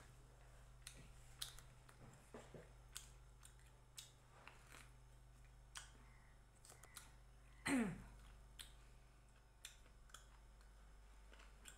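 Quiet, close-up eating sounds of chewing a mouthful of roti and chicken: scattered soft mouth clicks and smacks. About eight seconds in comes one short, louder sound that slides steeply down in pitch.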